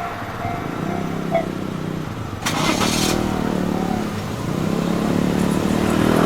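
Road vehicles' engines pulling away and accelerating, with a short hiss about two and a half seconds in.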